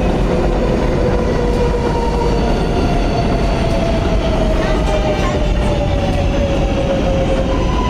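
New York City subway train running on the elevated tracks: a loud, steady rumble of wheels on rail with a whine that slowly falls in pitch, and a higher steady tone coming in near the end.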